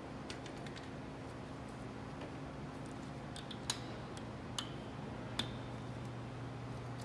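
Pliers clicking against the steel tuning pins and bass string wire of an antique Erard piano as the old strings are worked off: a handful of sharp, widely spaced metallic clicks, a few with a brief high ring, over a steady low hum.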